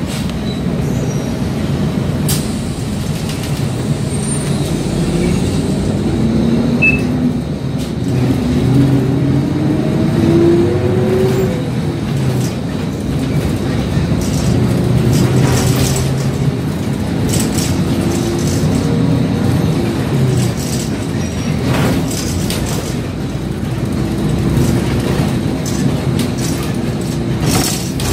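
City bus engine and road noise heard from inside the bus as it drives, the engine note climbing and dropping several times. A few sharp clunks and rattles are heard along the way.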